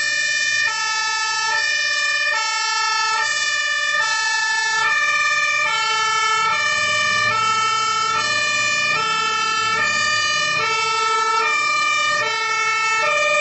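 Fire engine's two-tone siren, switching back and forth between two pitches about every three quarters of a second, over the low rumble of the truck's engine.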